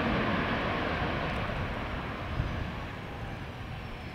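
Jet airliner engines, a steady rush of noise slowly fading, with a faint high whine falling slightly in pitch in the second half.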